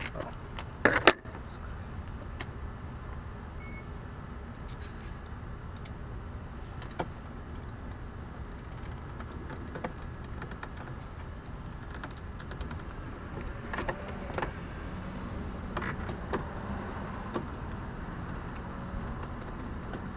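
Scattered clicks and knocks of car door trim parts being handled and fitted, with one loud knock about a second in, over a steady low background noise.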